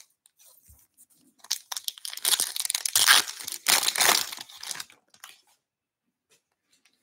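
A foil-wrapped Bowman baseball card pack being torn open by hand, the wrapper crackling and crinkling for about four seconds, starting about a second and a half in.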